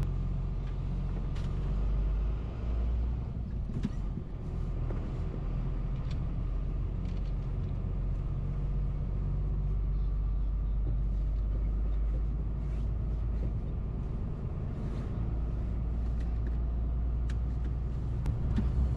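Heavy goods truck's engine running as the truck pulls away and drives slowly, heard from inside the cab: a steady low hum and rumble.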